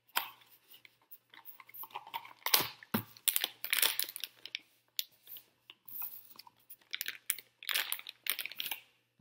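Crinkling and crackling of a foil wrapper as it is pulled from a small cardboard box and handled, in irregular bursts, with two soft knocks about two and a half and three seconds in.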